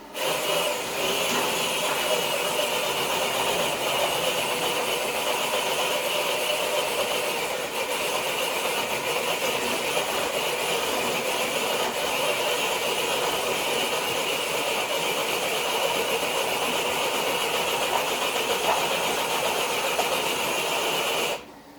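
Electric RC truck's motor and drivetrain whining under load as it drags a weighted sled across concrete, steady for about 21 seconds and then cutting off suddenly. This is a truck that falls short of a full pull.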